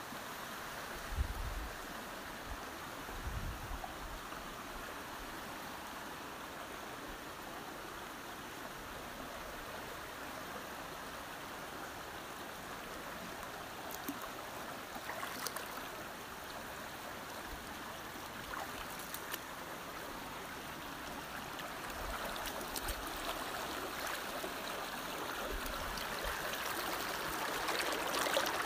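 Steady rushing noise like running water in a stream, growing a little louder near the end.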